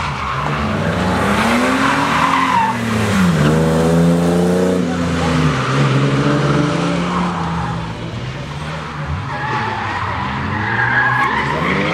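Drift car's engine revving hard, its pitch rising and falling with the throttle and held high for a few seconds in the middle, over tyres screeching as the car slides sideways through a corner.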